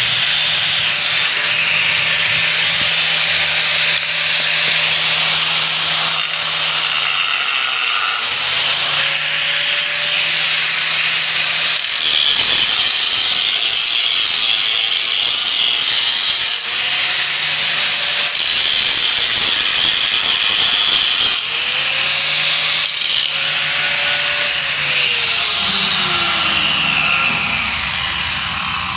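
Electric angle grinder running and grinding into a cracked steel pipe post, cutting a groove along the crack so the weld will take. It grows louder and harsher in two stretches around the middle where the disc bites hard into the metal.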